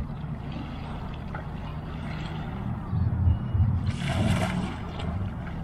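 An oar blade splashes into the water once, about four seconds in, as an inflatable rowing boat is rowed, over a steady low rumble.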